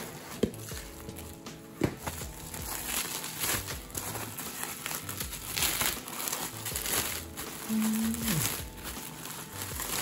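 Plastic bubble wrap crinkling and crackling as a wrapped CPU heatsink is lifted out of a cardboard box and handled. There are two sharp taps in the first two seconds.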